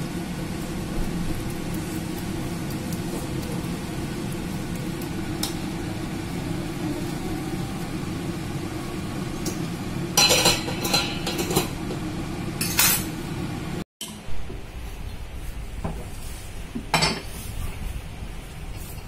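Kitchen utensils knocking and clinking against a glass baking dish while minced lamb filling is spread, over a steady low hum, with a cluster of sharp clinks about ten to thirteen seconds in. After a short gap, a few single clinks of a metal fork against a pot of boiled potatoes.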